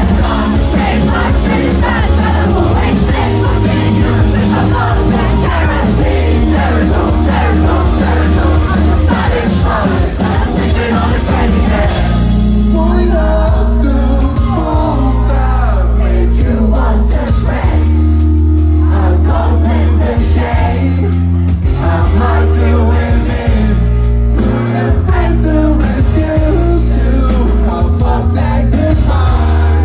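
Live rock band with a male lead singer performing a song. About twelve seconds in the dense, bright full-band sound thins out to a sparser passage carried by held bass notes and voice.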